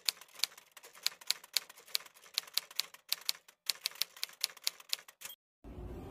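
Typewriter key-click sound effect, sharp irregular clicks about three to four a second with a short pause midway, stopping about five seconds in. Near the end a low noise starts and rises.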